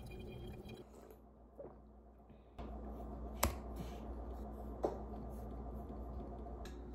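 A few sharp, isolated clicks of fingers tapping on a MacBook Air's keyboard, over a low steady room hum; the clicks start about two and a half seconds in, the loudest two about a second and a half apart.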